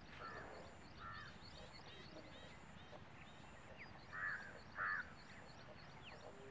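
Crows cawing four times, the last two calls louder and close together, over constant twittering of small birds and a steady high-pitched whine.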